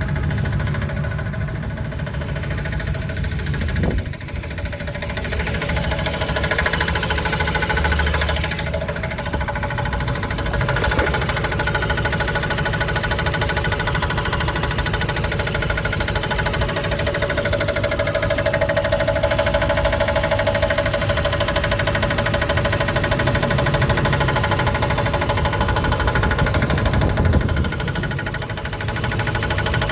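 Pickup truck engine running with an unexplained repeating knock-like noise from the front driver's side. The owner is unsure of the cause but hopes it is not engine knock; all gauges read normal.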